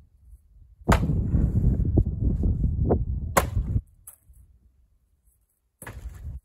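Splitting axe striking a log round on a chopping block twice, sharp cracks about two and a half seconds apart, with a low rumble between them as the round splits; a shorter noise follows near the end.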